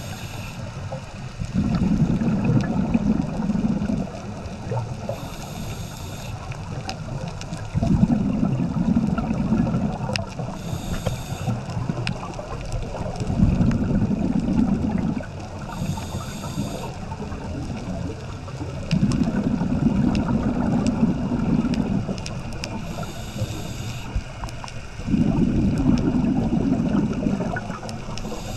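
Scuba diver breathing through a regulator underwater. A short hissing inhale from the demand valve comes about every five to six seconds, each followed by a couple of seconds of loud, low bubbling as the exhaled air vents from the regulator. Five breaths in all.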